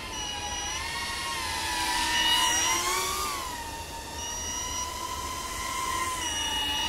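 Brushless motors and 3-inch props of a small FPV quadcopter whining in flight, the pitch rising and bending with throttle changes. It is loudest about two seconds in, then holds steadier.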